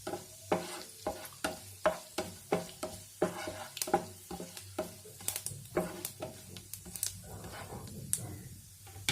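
Spatula stirring a tempering of whole spices (dried red chillies, cumin and fennel seeds) in hot oil in a kadai, with the spices sizzling. The spatula strikes and scrapes the pan about twice a second, and each stroke rings briefly.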